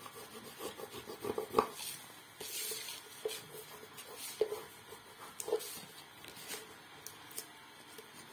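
Knife blade and fingertips rubbing and pressing masking tape down onto paper: soft scraping with a few small clicks.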